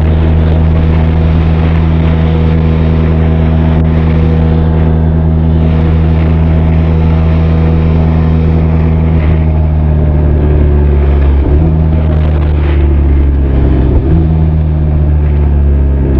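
Benelli TRK 502 motorcycle's parallel-twin engine and exhaust running at a steady cruise, heard close to the exhaust. The pitch shifts slightly a couple of times in the last few seconds.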